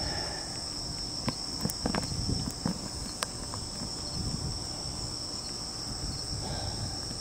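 Steady high-pitched insect chorus, like crickets, with a few light clicks and knocks in the first few seconds over a low outdoor rumble.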